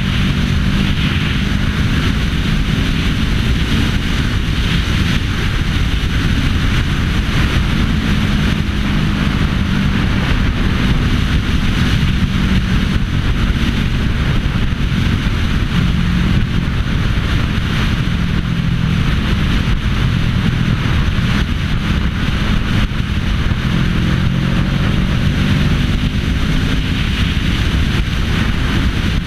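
Sport motorcycle engine running at a steady cruising speed, with heavy wind rush over the camera's microphone.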